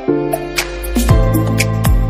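Instrumental background music: held notes over a light, regular ticking beat, with a deep bass coming in about a second in.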